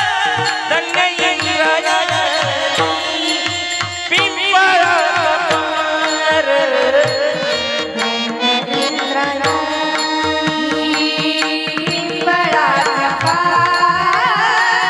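Devotional kirtan music. A singer runs an ornate, wavering melody over held steady tones, with a hand drum keeping a quick beat underneath.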